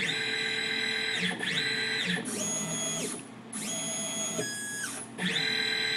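The DM3000 lathe's axis stepper motors whining through a series of jogging moves under Mach 3 control, about five separate moves. Each one ramps up in pitch as it starts and down as it stops.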